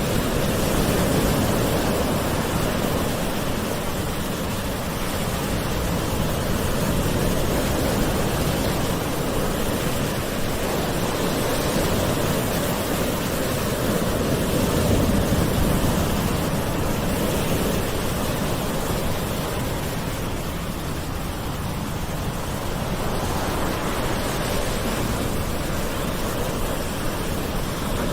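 Gentle ocean waves washing on a shore: a continuous wash of surf that swells and eases slowly every several seconds.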